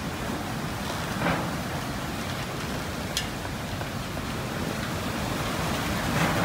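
Cats chewing raw chicken from steel plates, with a few short clicks, over a steady hiss.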